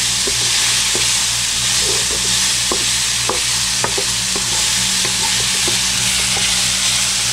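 Diced onion, green bell pepper and garlic sizzling steadily in olive oil in a wok as they are sweated, stirred with a wooden spatula that knocks and scrapes against the pan every half second or so.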